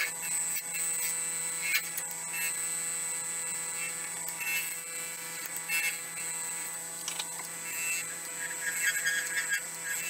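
Nova Galaxi DVR wood lathe running with a steady hum and a high whine while a bowl gouge cuts the spinning silver maple burl and epoxy resin blank, shavings hissing off the tool with scattered ticks. The cutting hiss thickens near the end.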